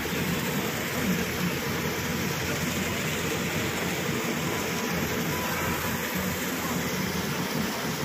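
Muddy water gushing steadily from a broken water line into an excavated pit, a continuous rushing of water, with the excavator's diesel engine running underneath.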